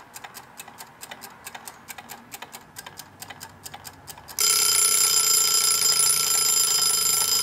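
Chicken-shaped wind-up kitchen timer ticking rapidly as it winds down, then its bell ringing loudly and steadily from about four seconds in: the set cooking time is up.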